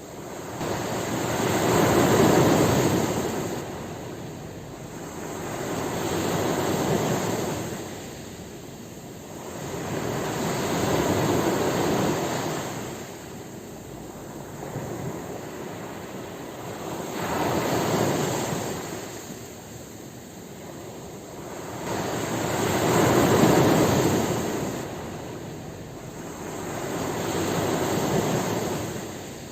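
Ocean waves breaking and washing up on the shore, a steady rush of surf that swells and falls back about every five seconds.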